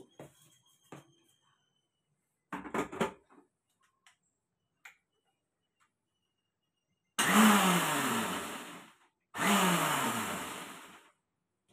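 Electric mixer grinder pulsed twice for about two seconds each, lightly grinding cooked amaranth leaves. Each run starts abruptly, and the motor's whine drops in pitch as it winds down after being switched off.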